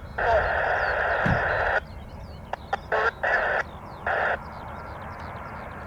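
A crow cawing: one long, harsh call, then a few short caws. Small birds twitter faintly in the background over a low, steady outdoor rumble.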